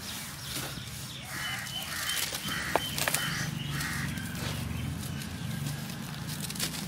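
Chunks of dry sand-cement crumbled and crushed by hand into loose cement powder: gritty crackling and rustling with scattered sharp cracks, one louder snap near the middle. From about a second and a half in, a bird calls four times in quick succession.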